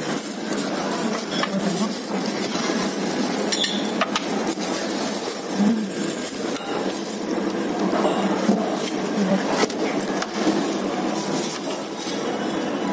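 Cutlery and dishes clinking at a restaurant table, scattered sharp clinks over a steady background of dining-room noise.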